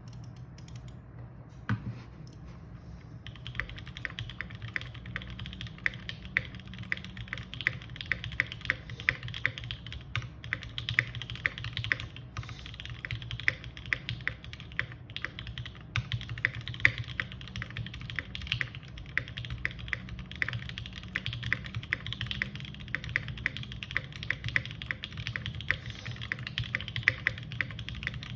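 Typing on a Smith & Rune Iron180 mechanical keyboard with lubed OPBlack switches on a forged carbon fibre plate, gasket-mounted, with GMK keycaps. A few scattered keystrokes come first, then fast, continuous typing from about three seconds in, with occasional louder key strikes.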